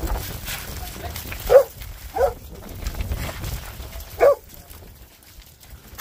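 Farm dog barking three times while driving sheep: two short barks close together, then a third about two seconds later.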